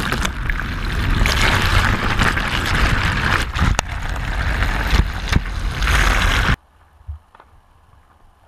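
Water pouring and sloshing into a plastic bucket, heard from a GoPro lying at the bucket's bottom: a loud rushing splash with scattered knocks, cutting off suddenly about six and a half seconds in, after which there are only a few faint knocks.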